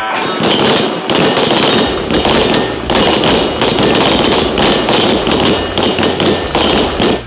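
Rapid, overlapping gunshots from firearms on a shooting range, a dense crackle of shots with no real pause, which stops abruptly.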